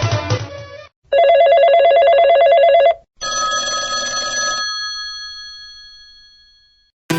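Phone alert tones from a Blu Studio 5.5 C: a rapid electronic trilling ring like an old telephone bell, about two seconds long, then a short chime whose tones ring on and fade slowly. Just before them, the end of an electronic-music ringtone cuts off.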